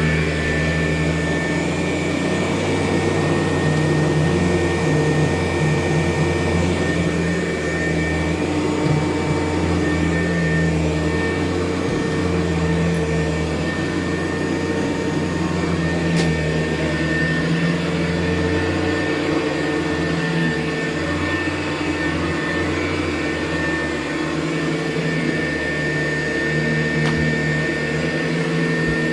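Hoover U4007 upright vacuum cleaner running continuously on carpet, a steady machine hum under a high whine, the lower tones shifting slightly from time to time.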